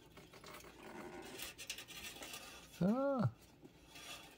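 Fingers scratching and rustling at a sticker label on a plastic hydroponic plant pod, with small clicks. About three seconds in, a man gives a short hummed 'hmm' that rises and falls in pitch.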